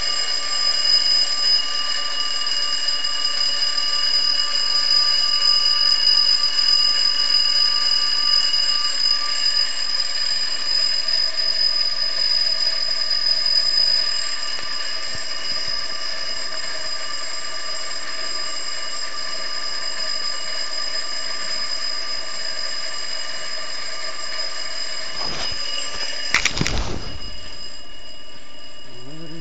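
Alarm clock ringing continuously with a steady high-pitched tone, slightly quieter from about halfway. Near the end a couple of short knocks or rustles are heard over it.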